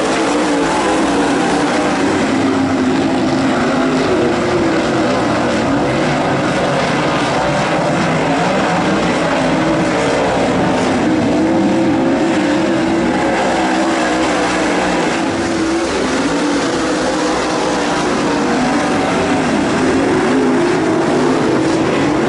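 A pack of dirt late model race cars racing laps, their V8 engines running together as a loud, steady drone, with pitches wavering up and down as the cars go through the turns.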